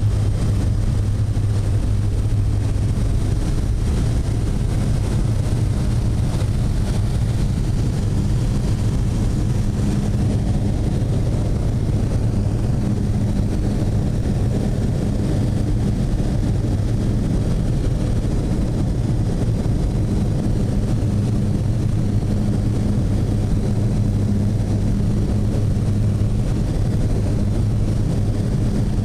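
Steady drone of a small amphibious floatplane's engine and propeller in cruise, heard inside the cabin: an even low hum that does not change.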